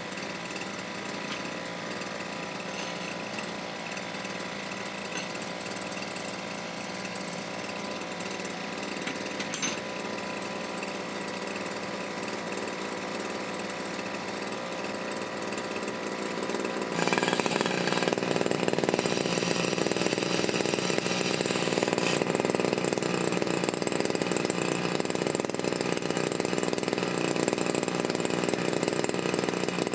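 Small two-stroke brush cutter engine running steadily; about two-thirds of the way through it suddenly gets louder and stays at the higher level.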